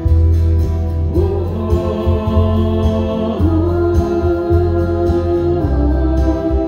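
Live pop-rock music over a PA: acoustic guitar with a heavy bass and sung notes held long and sliding between pitches.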